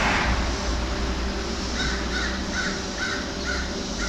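A bird calling in a series of short, evenly spaced calls, about two a second, starting a little under halfway in, over a steady low hum.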